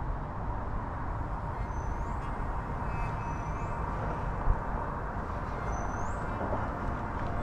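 Steady outdoor background rumble with a small bird's short, high, rising call heard three times. A single thump about four and a half seconds in is the loudest moment.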